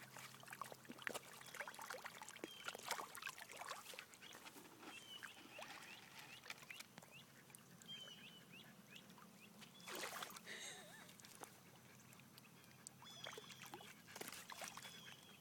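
Faint, irregular small splashes and trickling of shallow pond water as a dog paws at it, with a louder splash about ten seconds in.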